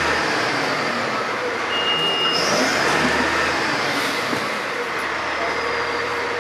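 Fire engine's motor running steadily at a standstill, with one short high beep about two seconds in.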